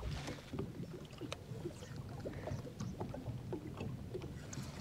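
Faint ambient noise aboard a small fishing boat on the water: a low rumble with scattered light clicks and knocks.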